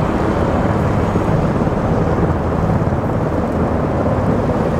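Jet aircraft engines, a steady low rumble that holds level throughout.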